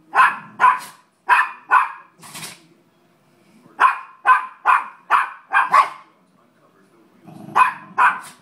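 A dog barking in three quick runs of short, sharp barks, about two a second, with brief pauses between the runs.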